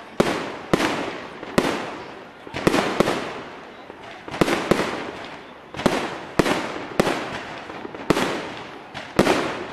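Fireworks going off: about a dozen sharp bangs at an irregular pace, roughly one every half second to second and a half. Each bang trails off in a fading rumble.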